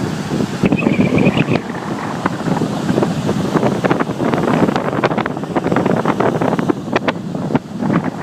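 Breaking surf churning around the microphone: a loud, steady rush of tumbling water with many quick splashes and crackles.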